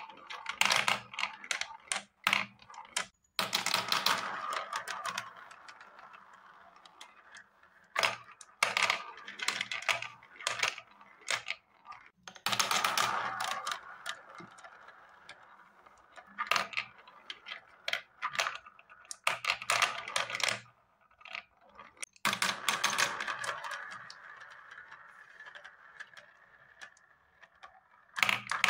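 Marbles rolling around a plastic spiral-funnel marble run: bursts of rapid clicking and clattering as they hit and drop through the track, each followed by a steady rolling whir that fades away over a few seconds. This happens in several rounds with short quiet gaps between them.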